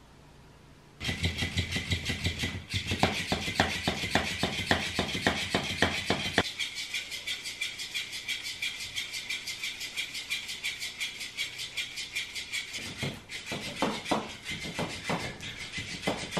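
Battery-powered wiggling fish cat toy switching on about a second in: its small motor runs with a fast, even buzzing clatter. For the first few seconds there are soft low thumps as well.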